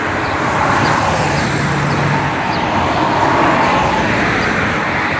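Steady road traffic noise from cars driving past on a city street.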